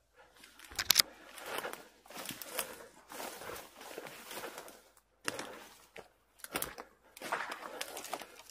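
Footsteps crunching and rustling through dry fallen leaves and brush, coming in uneven bursts with short pauses. Twigs snap sharply about a second in and a few more times later on.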